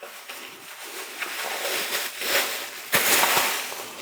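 A bag crinkling and rustling as grocery items are pulled out of it and handled, with a sharp knock about three seconds in.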